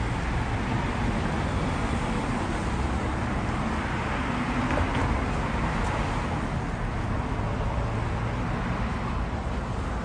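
Traffic on a city street: cars driving through an intersection, a steady wash of engine and road noise.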